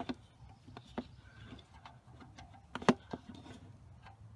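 Scattered clicks and knocks of hand tools working the oil drain bolt under a Bolens diesel tractor, with one sharp knock about three seconds in.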